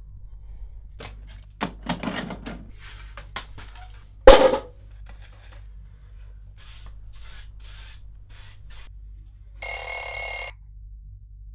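Small clattering handling noises and one loud thump about four seconds in. Near the end an alarm clock rings for about a second and cuts off suddenly.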